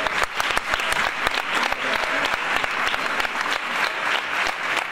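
Large crowd applauding, many hands clapping densely and steadily.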